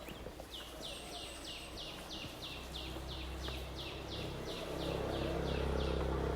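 A bird singing a fast, even series of about sixteen short falling notes, roughly four a second, that stops after about four seconds. A low rumble builds underneath and becomes the loudest sound near the end.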